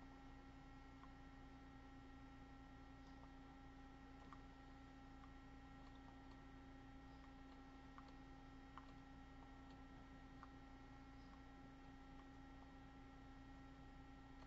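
Near silence: a faint steady electrical hum, with a few faint, scattered computer mouse clicks.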